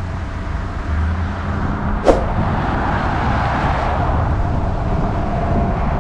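A car driving, with a steady low engine and road rumble. Tyre and wind hiss grows after about two seconds as the car gathers speed on the straight. A single short, sharp click sounds about two seconds in.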